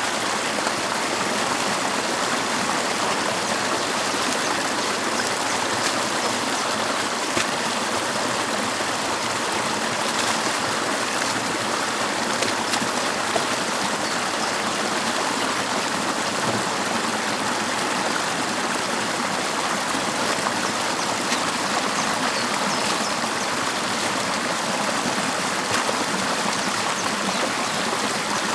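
Stream water rushing and gurgling steadily, with a few faint clicks scattered through it.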